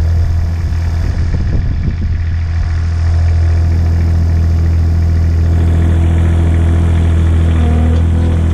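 Ransomes HR300 ride-on mower's engine running steadily as the mower is driven on a short test run, a deep even drone that holds the same pitch throughout.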